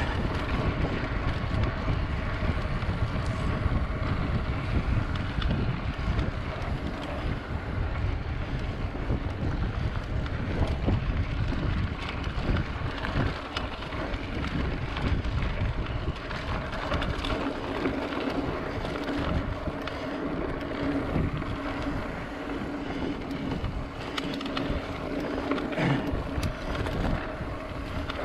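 Wind buffeting the microphone on a mountain bike ridden along a dirt trail, with tyre noise and scattered small knocks and rattles from the bike.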